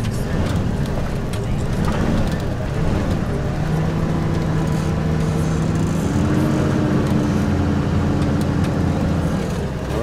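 Van engine running, heard from inside the cabin as it drives slowly. The engine's note changes about six seconds in.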